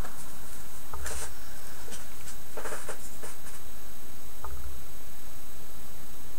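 Short rustles of wrapping being handled, a few times, with a couple of soft low bumps as an object is moved and picked up.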